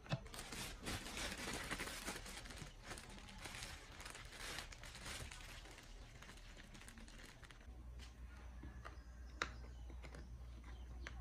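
Irregular rustling and crinkling for about seven seconds, then quieter, with a couple of light clicks near the end.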